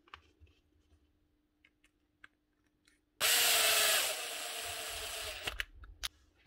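Hikoki DV18DBXL 18 V brushless cordless drill test-run briefly after its stripped low-gear housing is replaced: it starts suddenly, is loudest for the first second, then runs steadier and quieter with a whine for about another second and a half before stopping. A few light clicks of handling come before it.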